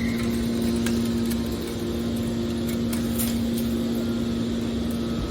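Metal baler's hydraulic power unit running with a steady hum, with a few faint ticks over it.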